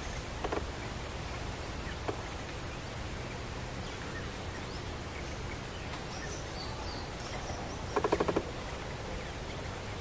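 Bulbul calling: a short note about half a second in, then a quick burst of about six chattering notes near the end, over steady outdoor background noise with faint high chirps in between.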